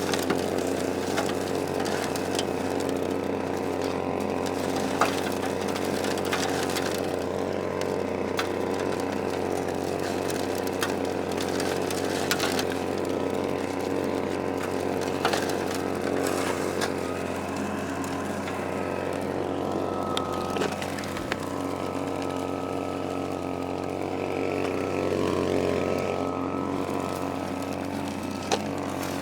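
Royal dry washer's small gas engine running steadily, with occasional sharp clicks on top.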